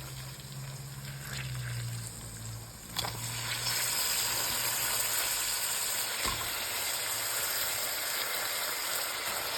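Chopped saag greens going into a pot of hot tadka: after a low hum and a knock about three seconds in, a steady sizzle of frying.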